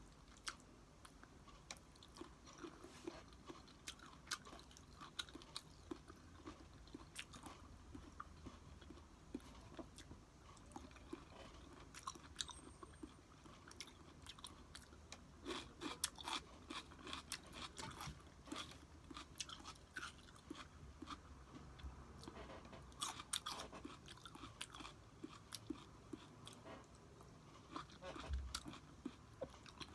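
Soft, close-up chewing and crunching of a person eating leftover rice, with many irregular small clicks and mouth smacks.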